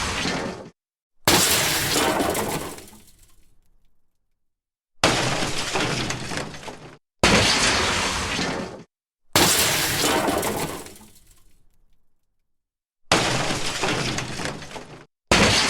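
A series of separate glass-breaking crashes, each a sudden smash with shattering that tails off over one to three seconds. About six of them, with dead silence between.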